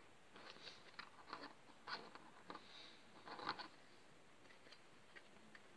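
Faint, soft scrapes and rustles of 3D puzzle pieces being handled and pushed together as a slipped elephant leg is pressed back into place. The scrapes come mostly in the first three seconds or so.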